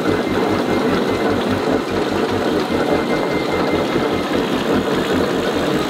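Brown and Sharpe automatic screw machine running under flat-belt drive, the belt now held tight by a new idler-pulley tensioner so it drives without slipping. Its gearing makes a steady mechanical pulse of about five low beats a second, singing like a truck transmission.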